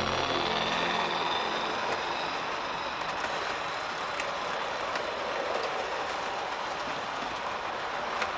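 Model trains running on a layout: a steady whirring rumble of wheels on the rails, with a few faint clicks.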